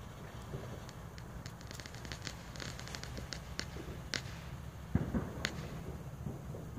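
Hand-held yellow smoke flare burning, giving off scattered sharp crackles over a low steady rumble, with one dull thump about five seconds in.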